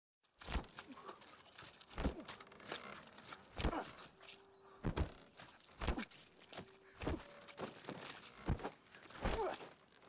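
Sharp thuds and swishes of someone practising martial-arts forms: about eight stamps or strikes, a second or so apart.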